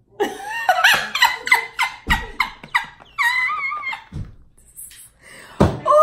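A woman laughing: a quick run of bursts for about three seconds, followed by a held high note and another falling laugh-like sound near the end.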